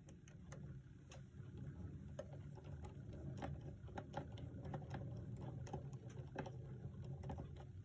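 Faint, irregular small clicks and taps of a small screwdriver and fingers working a tiny set screw and the set knob off the metal back of an electric mantel clock, over a low steady hum.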